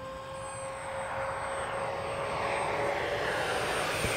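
Electric motor and propeller of a Skynetic Havok Racer foam RC plane in flight: a steady whine over rushing air that grows gradually louder as the plane comes closer.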